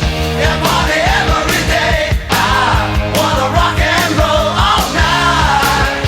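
Hard rock music from a band of drums, bass and distorted electric guitars, with a bending, wavering lead melody line over a steady beat.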